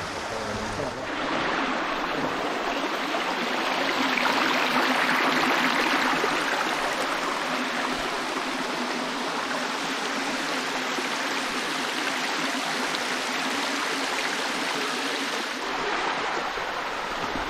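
Small creek running over rocks: a steady rush of water that grows a little louder a few seconds in, then settles.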